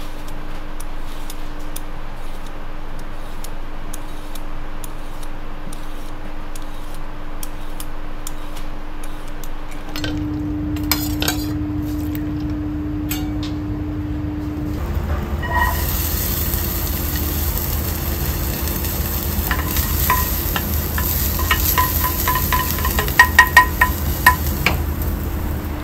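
Peas sizzling in a small saucepan on a gas burner as a wooden spatula stirs them, with a row of sharp knocks of the spatula against the pan near the end. Before that, quieter scraping strokes of a vegetable peeler along asparagus stalks, then a spoon clinking in a stainless bowl of ice water.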